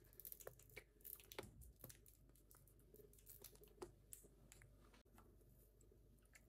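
Near silence, with faint scattered clicks and soft crackles.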